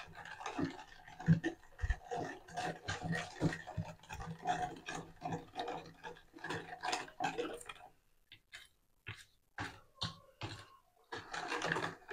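Metal spoon stirring sugar into cold water in a glass, clinking quickly and unevenly against the glass; the clinks thin out to a few taps about two-thirds through, then pick up again near the end. The sugar is slow to dissolve because the water is cold.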